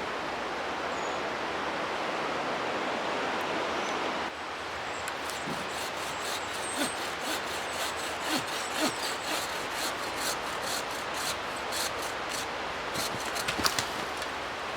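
A river rushing steadily. From about five seconds in, a run of small sharp cracks and snaps comes over it, as dry wood is broken off a tree for a fire.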